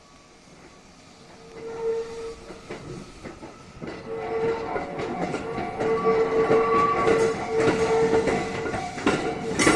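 JR West 321 series electric train approaching and getting louder: a steady tone with its overtones, wheels clicking over the rail joints, and a loud clatter of wheels near the end.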